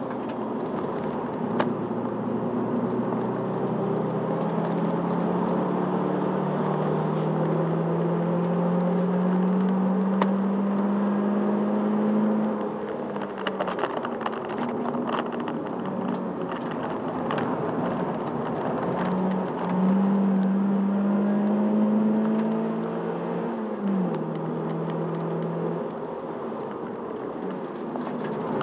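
Toyota Celica's engine heard from inside the cabin under hard driving, its note climbing slowly in pitch as the car accelerates and dropping at gear changes, once about halfway through and again about three-quarters of the way in. A few sharp clicks sound over it.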